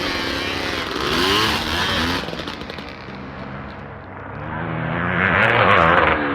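Motocross bike engines revving and changing pitch as the bikes race past. The sound swells about a second in, dies down around four seconds, then builds again near the end as more bikes approach.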